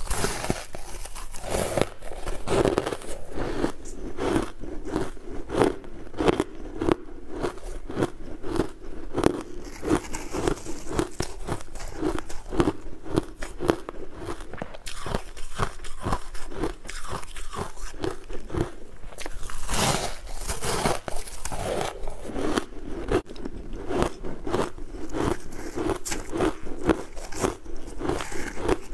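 Close-miked biting and chewing of refrozen ice chunks: a fast, continuous run of sharp crunches, with a louder bite about two-thirds of the way through.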